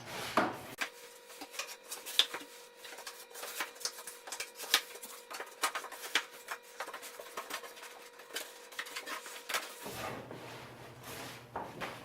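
Wooden barn door panel pieces knocking and rubbing as they are fitted into the frame: many irregular sharp knocks, with a faint steady hum underneath.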